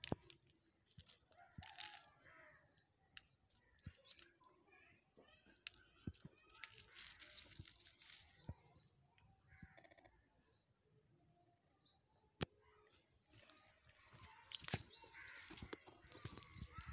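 Faint crackling and rustling of dry sesame stalks, leaves and a plastic tarp being handled, with small birds chirping at times.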